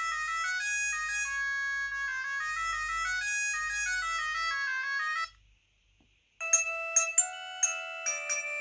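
COSUN 9958 Chinese mobile phone playing a ringtone melody that stops about five seconds in. After a second's pause the next ringtone starts, a tune of short, sharp notes.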